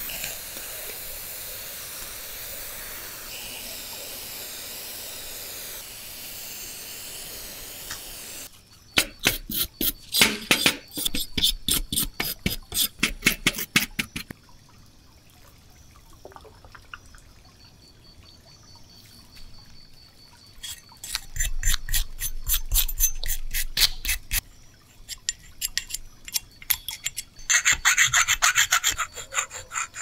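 Aerosol paint remover hissing steadily as it is sprayed over small die-cast toy parts, cutting off after about eight seconds. Then rapid rubbing strokes on the metal parts for a few seconds, a quieter spell, and more rapid rubbing from about twenty seconds in to the end.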